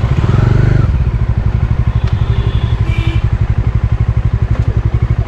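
Bajaj Dominar 400's single-cylinder engine idling at standstill, a rapid, even beat heard from the saddle. For about the first second a louder engine sound with a rise and fall in pitch lies on top, as another motorcycle passes close by.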